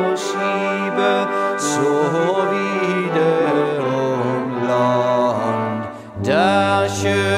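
Background music of sustained, layered melodic tones that gives way briefly about six seconds in, then comes back in.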